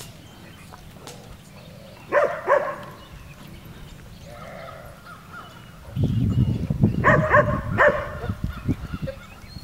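Short pitched animal calls: two about two seconds in and several more about seven seconds in. A loud low rumble of noise comes in at about six seconds.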